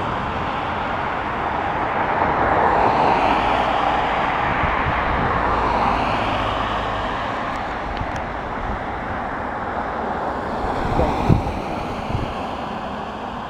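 Road traffic going past: a steady rushing noise that swells over the first few seconds and slowly fades, with a few soft knocks near the end.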